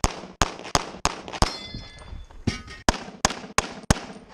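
Pistol shots fired in quick succession, about ten in all, with a short pause in the middle. A metallic ringing follows one shot about a second and a half in.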